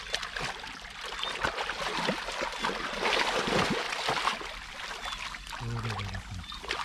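Hands churning and splashing through shallow muddy water and mud while feeling for fish: a continuous jumble of sloshing and splashing, loudest around the middle.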